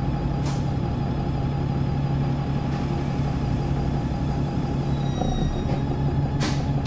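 Cummins ISBe diesel engine of an Alexander Dennis Enviro200 Dart bus idling steadily. There is a short hiss of compressed air about half a second in and a louder one near the end.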